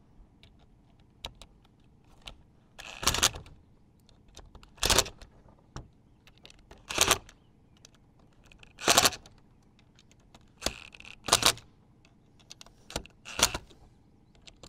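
Cordless DeWalt impact driver hammering in seven short bursts, roughly one every two seconds, as it does the final tightening of Phillips screws into a SHURFLO RV water pump's plastic upper housing. Light clicks of the bit and parts being handled come between the bursts.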